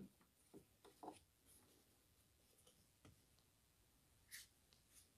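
Near silence with a few faint, scattered clicks and ticks: a small hand tool prying at a plastic push rivet on a car's plastic radiator fan cowling.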